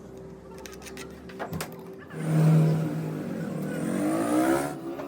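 Motorcycle engine revving. It comes in suddenly about two seconds in, its pitch dipping and then climbing, and cuts off near the end.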